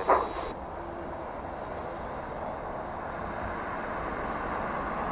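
Boeing 737-700's CFM56-7B jet engines at taxi idle: a steady rushing noise that grows slightly louder as the airliner comes nearer.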